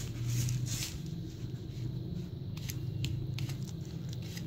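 A hand working flour and water together in a plastic bowl to knead dough: soft scratching with a scatter of short, light clicks over a low steady hum.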